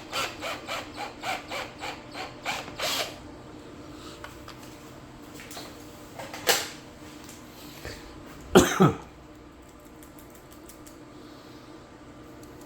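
Ratcheting clicks of a hand tool boring a hole in an inkjet ink cartridge, about three to four clicks a second for three seconds. Then one click and, a couple of seconds later, a louder double knock.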